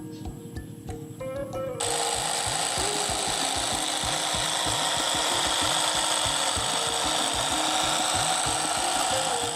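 A small motor or power tool running with a steady, noisy whirr, starting suddenly about two seconds in and cutting off near the end, over background music with a steady beat.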